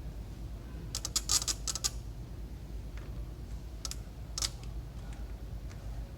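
Quick run of small clicks and taps, then two more single clicks a couple of seconds later, from multimeter test probes and leads being worked against the connectors of a circuit test board. A steady low hum sits underneath.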